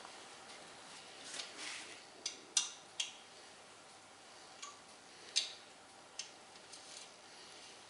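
Light metallic clicks and taps, about six of them at irregular intervals, after a brief rustle near the start: small metal parts or tools being handled during engine assembly.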